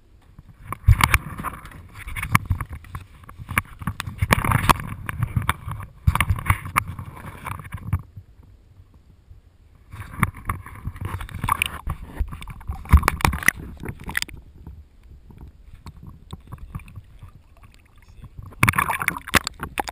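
Water sloshing and splashing against an aluminium canoe's hull and a camera at the waterline, with knocks. It comes in three noisy spells: a long one over the first eight seconds, another from about ten to fourteen seconds, and a short one near the end.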